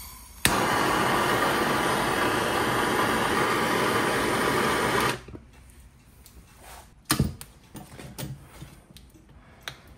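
Handheld gas torch lit with a click about half a second in, then the steady hiss of its flame for about four and a half seconds before it is shut off abruptly; it is heating a seized nut on a turbo's wastegate actuator rod. Afterwards a few metal clanks as tools are handled on the turbo.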